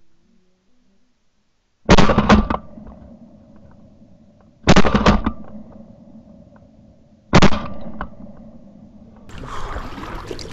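Shotgun fired three times, about two and a half seconds apart, at Canada geese flushing off the bank, each shot a loud blast with a short echoing tail. Near the end, a steady rush of water noise takes over.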